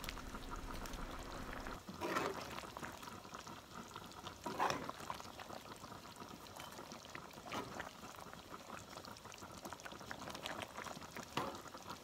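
Coconut-milk chicken curry simmering and bubbling in a nonstick pan while a spoon scoops through the sauce, with a few brief scrapes of the spoon standing out.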